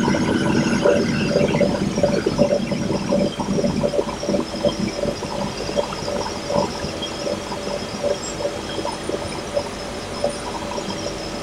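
Compressed air rushing and sputtering through a Bray Series 6A valve positioner and its pneumatic butterfly-valve actuator during the positioner's automatic initialization, over a steady hum. It is loudest for the first couple of seconds, then settles into a softer, irregular sputter.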